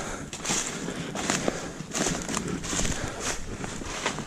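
Footsteps crunching through dry fallen oak leaves at a brisk walk, about two steps a second.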